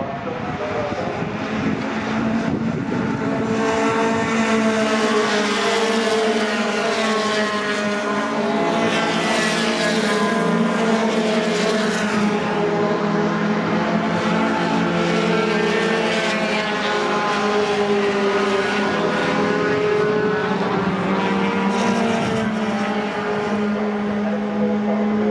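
Engines of several racing pickup trucks running hard together, their pitches holding and then stepping up and down as they shift gears. The sound builds over the first few seconds and then stays loud.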